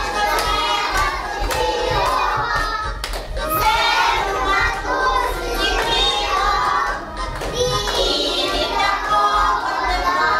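Young children singing a song together over music with a steady beat.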